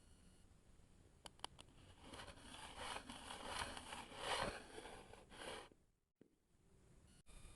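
Kinetic sand being cut: a couple of faint clicks, then about four seconds of soft, grainy crunching and crackling, which stops suddenly near the end.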